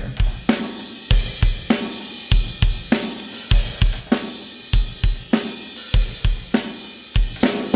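A recorded drum-kit groove of kick, snare, hi-hat and cymbals, played back through the Behringer X32's M/S Fair Compressor, an emulation of the Fairchild 670 tube compressor, on the stereo bus. The compressor limits the peaks and brings up the kit's perceived volume.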